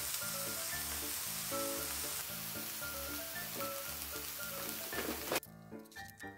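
Eel sizzling as it grills, under background music with a regular beat. The sizzling cuts off abruptly about five seconds in, leaving only the music.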